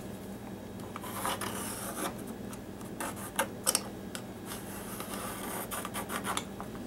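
Pencil scratching across quarter-inch plywood as it traces around a battery cap, with a couple of sharp clicks about halfway through.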